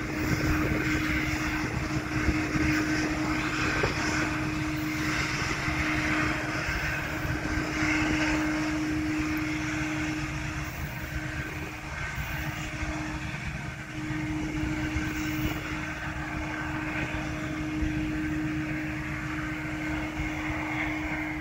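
Diesel locomotives of a loaded coal train heard at a distance, with a steady drone and low rumble.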